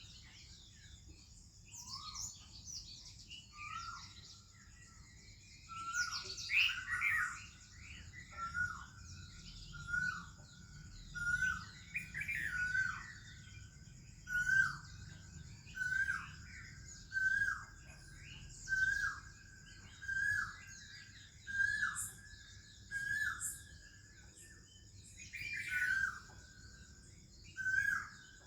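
Birds singing in a morning chorus that includes an Oriental magpie-robin. One bird repeats a short whistled note with a falling tail about once a second, over varied higher chirps and twitters from other birds.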